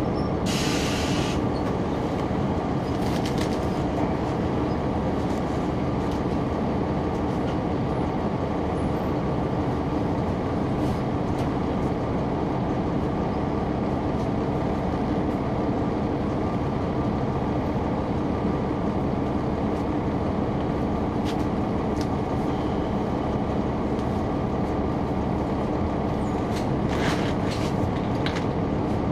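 Caterpillar C9 ACERT diesel engine of a 2004 Neoplan AN459 articulated bus running steadily, heard from the rear of the passenger cabin. There is a short hiss about a second in and a few clicks or rattles near the end.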